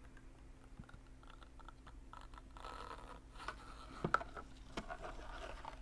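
Water being poured into the reservoir of a compact steam iron: a faint trickle with small plastic clicks and scrapes from handling the iron and its fill opening.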